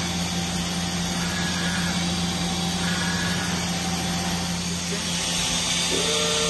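Mazak VCN410A vertical machining center running under power: a steady machine hum with a low tone, and a higher steady whine joining near the end.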